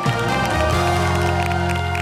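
Show's closing theme music ending on a long held chord with heavy bass, which cuts off at the end.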